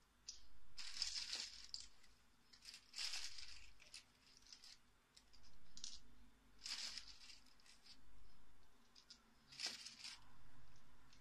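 A hand pressing and rubbing across rows of hard capsules seated in a clear plastic capsule-filling board, giving scratchy rustling bursts every two to three seconds with light plastic clicks between.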